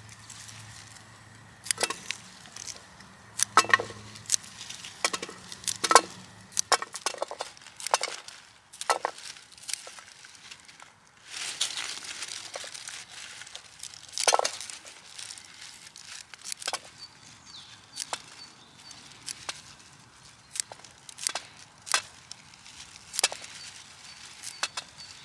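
Scissors snipping through wild garlic (ramsons) bulbs, one cut after another at an uneven pace, a sharp crisp snip for each bulb.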